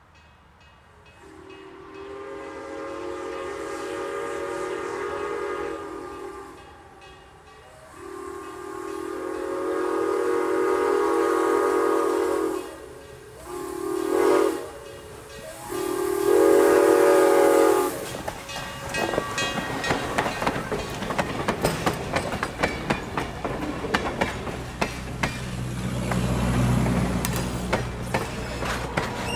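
Steam locomotive whistle sounding the grade-crossing signal: two long blasts, a short one, then a final long blast. The train then rolls past, its wheels clicking rapidly over the rail joints, with a low engine drone swelling near the end.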